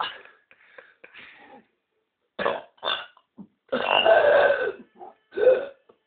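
A man burping deliberately: a string of short, loud burps with one longer burp of about a second near the middle.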